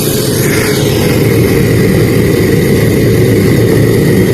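Loud, steady low rumble from the repaired home theatre's speakers, with no clear tune or beat.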